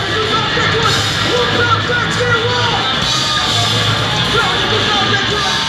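Loud rock music with singing or yelled vocals over the band, steady throughout.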